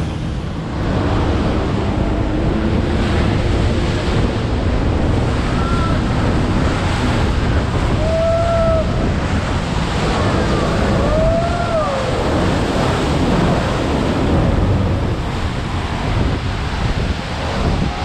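Loud, steady rush of churning water and waterfall spray, with wind buffeting the microphone, heard from a speedboat running in close under a waterfall.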